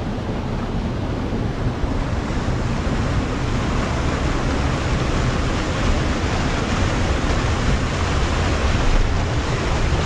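Steady rushing noise of a waterfall, with wind buffeting the microphone as a rough, low rumble.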